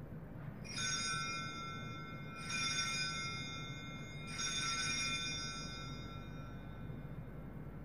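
Altar bells rung three times, each ring a cluster of high bell tones that fades over a second or two. They mark the elevation of the chalice at the consecration.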